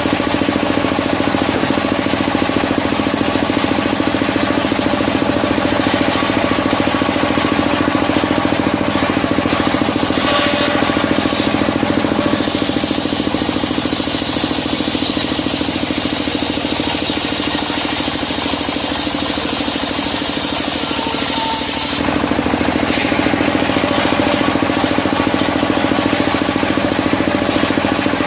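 Engine-driven circular sawmill running steadily while sawing medang kuning timber. The sound shifts about twelve seconds in and changes back about twenty-two seconds in.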